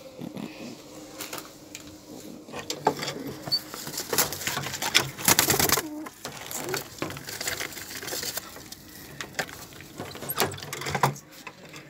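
Pigeons cooing in a wooden loft, mixed with scattered knocks and rustling from handling around the cage, and a louder rustle about five seconds in.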